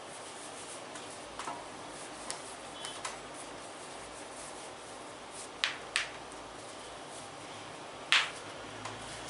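Sharp slaps and clicks of hands working on skin during a massage, scattered a second or so apart, with a close pair about six seconds in and the loudest slap about eight seconds in.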